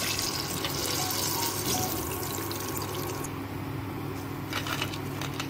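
Batter-coated chicken pieces deep-frying in hot oil: a steady sizzle and crackle that eases off about three seconds in. A few light clicks near the end.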